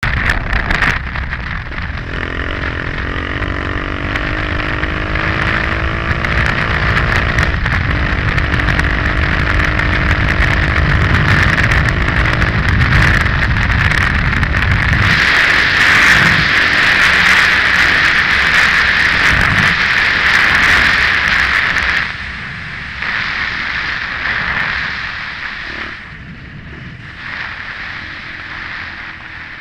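KTM 530 EXC-R single-cylinder four-stroke engine riding under way with heavy wind rushing over a helmet-mounted microphone. The engine note rises, breaks briefly, then rises again, like a change up a gear; the wind noise swells and the whole sound drops about 22 seconds in.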